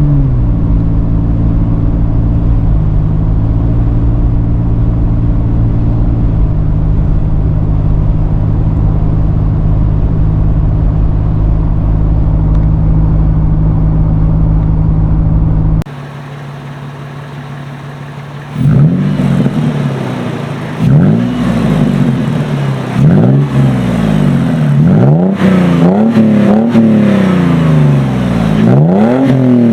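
Toyota FJ Cruiser's 4.0-litre V6 through an aFe 3-inch cat-back dual exhaust with a deep tone. For the first half it runs at a steady engine speed; then, after a short quieter stretch, it is revved up and let fall about six times in quick succession.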